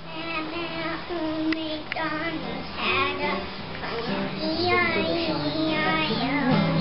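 Acoustic guitar being played while a young child and a woman sing, the voices holding long, wavering notes.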